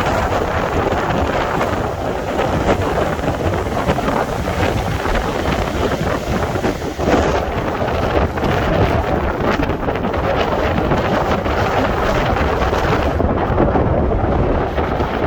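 Stormy sea surf breaking under strong wind buffeting the microphone, a continuous loud rush of noise with a heavy low rumble.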